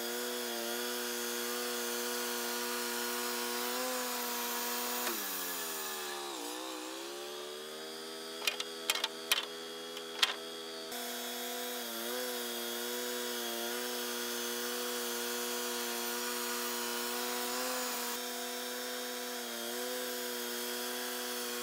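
Wood-Mizer LT35 portable sawmill's engine running steadily. About five seconds in it slows and its pitch falls, then at about eleven seconds it speeds back up. While it runs slow there are a few sharp knocks of sawn boards being handled on the mill bed.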